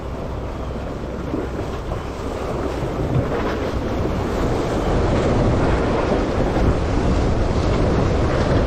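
Ocean surf washing and splashing against the boulders of a rock jetty, with wind buffeting the microphone as a low rumble. The wash grows louder about halfway through.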